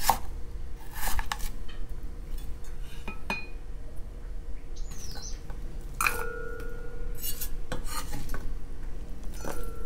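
Scattered knocks of a kitchen knife and daikon strips on a wooden cutting board. Two short ringing clinks of an enamel bowl come in the second half.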